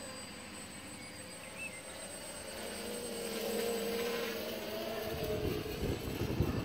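DJI F450 quadcopter's motors and propellers buzzing in flight, growing louder as it passes close about three to four seconds in, its pitch bending as it goes by. Irregular low rumbling comes in near the end.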